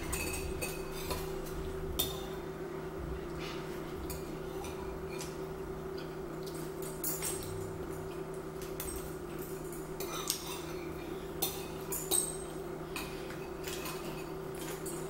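Metal spoons clinking and scraping against ceramic bowls during a meal, in scattered light clicks with a few sharper clinks, over a steady low hum.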